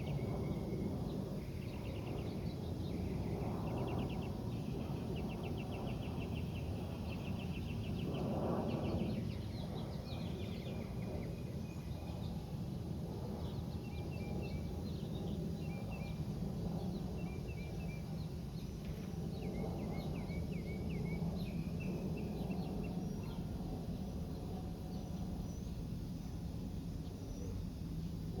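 Small birds chirping and giving quick, repeated trills, over a steady low outdoor rumble.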